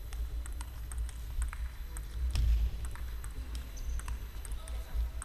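Table tennis rally: the ball ticking sharply off the paddles and the table in quick back-and-forth, roughly two ticks a second, over a steady low hum.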